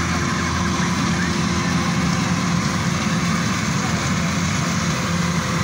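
Rice combine harvester running steadily while harvesting: an even engine drone with a constant hum.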